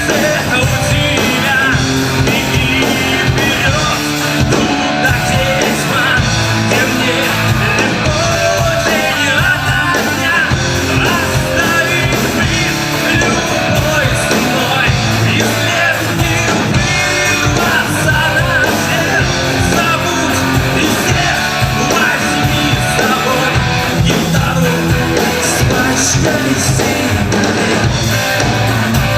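Rock band playing live: guitars and drums driving a steady beat under a singer's voice.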